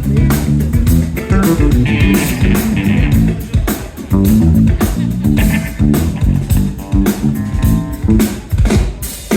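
Live instrumental band playing a groove: electric guitar and bass guitar over a drum kit.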